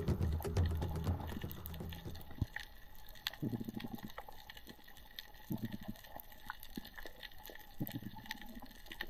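Underwater reef crackle: dense, irregular fast clicking of snapping shrimp, with a few short low muffled bursts of water movement. Background music fades out over the first two seconds.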